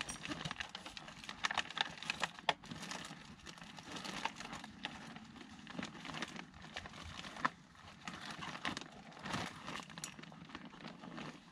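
Rustling and crinkling of plastic bags and packaging as someone rummages through a bag, with scattered clicks and a few sharper knocks of items being moved.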